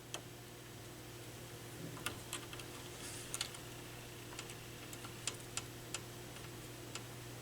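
Scattered light clicks and ticks of a small screwdriver working the metal retaining clips of a receiver's dial-lamp holder, coming irregularly a few times a second at most, over a steady low hum.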